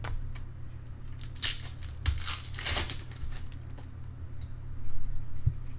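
Foil trading-card pack wrappers being torn open and crinkled, with several short rustling bursts, the loudest about one and a half and three seconds in, over a steady low hum.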